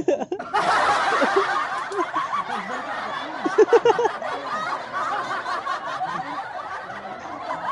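A crowd laughing: a dense burst of many overlapping laughs that starts suddenly about half a second in, with a few loud 'ha-ha-ha' strokes near the middle.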